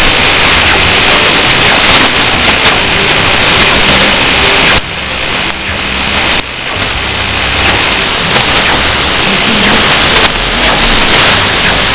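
Shortwave radio static from a WiNRADiO WR-G31DDC receiver tuned to 4810 kHz in upper sideband: a steady hiss with faint short tones of a weak, unidentified station buried in the noise. The hiss drops briefly twice, about five and about six and a half seconds in.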